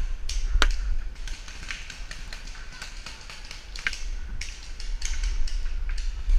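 Paintball gunfire: irregular sharp pops and taps of markers firing and balls striking, about a dozen spread unevenly, the strongest about half a second in and near four seconds, over a steady low rumble.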